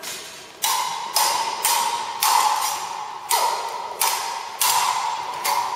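Swords clashing over and over in a duel, about two strikes a second, each blade strike ringing briefly; about three seconds in, one strike slides off in a falling scrape.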